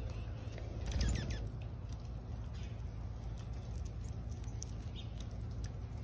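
Songbirds at a backyard seed feeder: light wing flutters and small pattering clicks on the feeder tray over a steady low rumble. A quick run of high chirping notes comes about a second in.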